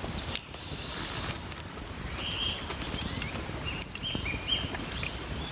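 A bird calling in a series of short, high chirps over steady outdoor background, with a few light clicks.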